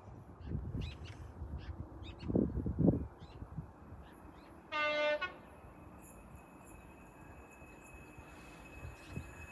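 Birds chirping, with low rumbling buffets in the first three seconds. About five seconds in comes one short single-note blast of a distant train horn, and near the end a faint steady high tone sets in.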